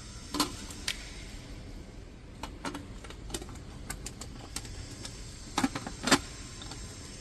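Irregular clicks and knocks, about nine in all, from handling a backup camera's licence-plate mounting bracket and its parts. The two loudest come close together about a second before the end.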